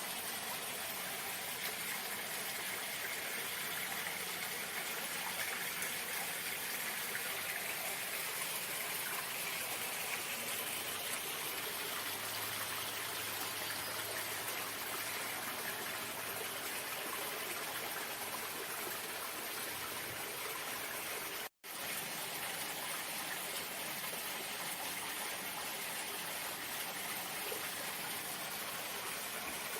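Running water flowing steadily, an even rushing splash like a stream or small waterfall. The sound drops out for an instant about two-thirds of the way through.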